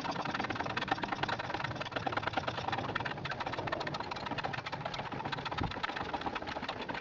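Hand-operated pump lever of a Clarke Strong-Arm hydraulic shop press being worked over and over, sped up into a dense, fast clicking and rattling. The ram is driving a broach down to cut a keyway.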